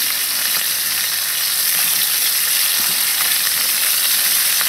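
Chicken and zucchini frying in oil in a very hot wok: a steady sizzle.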